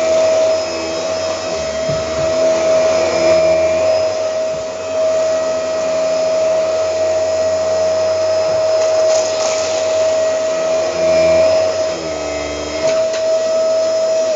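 Dyson DC24 Animal upright vacuum cleaner running with a steady high motor whine, its lower hum shifting as it is pushed back and forth over cereal and dust. There is a brief rattle about two-thirds through, and the motor is switched off right at the end.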